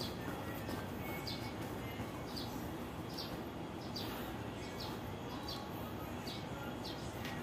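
A small bird chirping repeatedly, short high chirps about once a second, over steady background noise.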